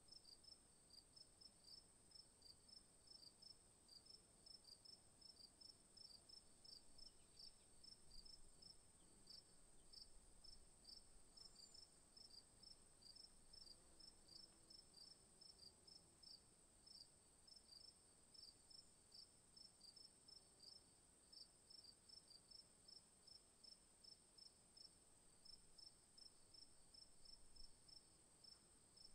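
Near silence, with faint high chirps repeating evenly about three times a second over a steady high whine.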